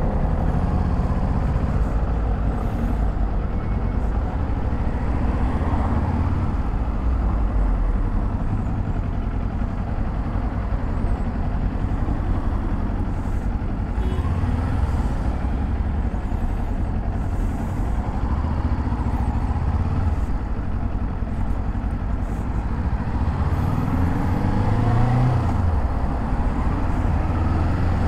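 Kawasaki Z400 parallel-twin engine running under way in city traffic, over a steady rush of road and wind noise. Its pitch rises a few seconds before the end as the bike accelerates.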